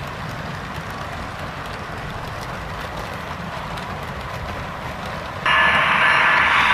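Model train cars rolling along the track, a steady rumble with faint wheel clicks. About five and a half seconds in, a much louder buzzy hiss with a steady high tone starts abruptly.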